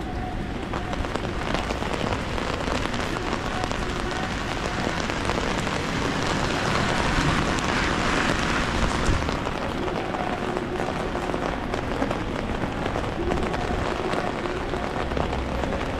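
Rain falling steadily on a city street, an even patter of drops that swells louder for a few seconds in the middle.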